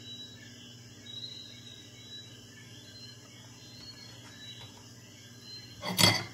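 High chirping of insects over a low steady hum, with faint scraping as a metal spatula works into cake in an aluminium foil loaf pan. About six seconds in, a short, loud clatter of the metal spatula against the foil pan.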